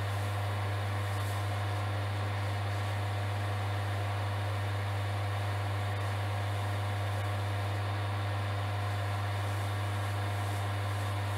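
Axminster Craft wood lathe running steadily with a strong, even low hum, the spinning pen blank being buffed with a paper towel to take off excess polish.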